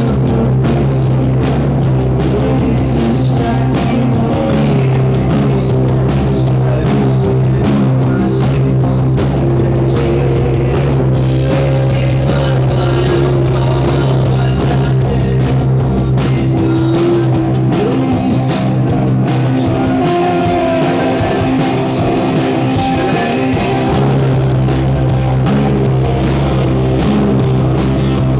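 Live rock band playing loud: distorted electric guitars, bass and drum kit, with some singing. The lowest notes drop out for a few seconds in the middle of the passage.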